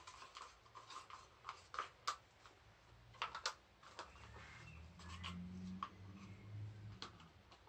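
Faint handling noises: scattered light clicks, taps and rubbing as gloved hands handle plastic paint cups, with a faint low hum coming in about halfway.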